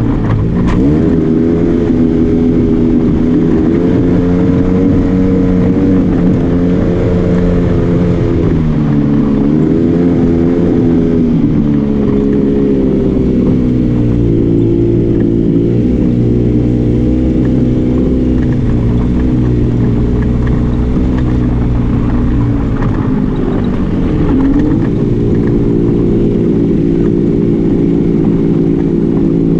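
Arctic Cat Wildcat Trail 700 side-by-side engine running under load while driving, its pitch rising and falling as the throttle is worked, with brief slowdowns about nine seconds in and again near the end.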